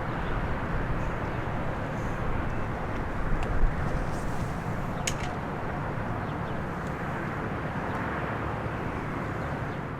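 Steady low rumble of road traffic, with a couple of brief sharp clicks near the middle.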